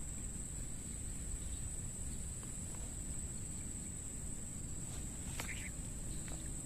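Steady high-pitched insect drone over a low rumble of outdoor background noise, with one sharp click about five seconds in.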